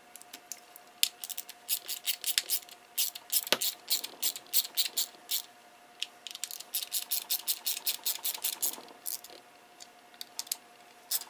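Screws being driven into the plastic housing of a Dremel 300 rotary tool with a screwdriver: two long runs of quick, light clicks, about three to five a second, with one heavier knock about a third of the way in.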